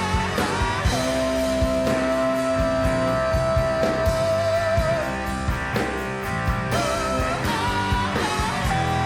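Live rock band playing, with steady drum hits under a lead line that holds one long note for about four seconds, then breaks into short bent phrases.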